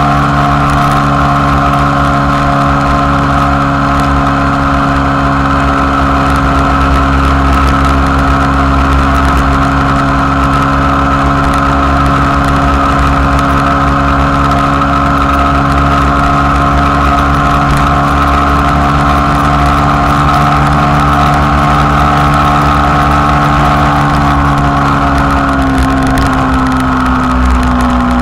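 Motorcycle engine running at a steady highway cruising speed, one even engine note over a low wind rumble on the microphone. The engine note drops slightly near the end as the throttle eases.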